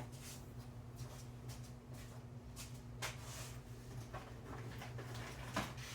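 Faint scattered clicks and handling sounds over a steady low hum.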